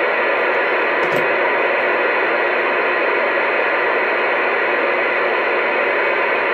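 AM CB radio receiver hissing steady static through its speaker, with no voice on the channel.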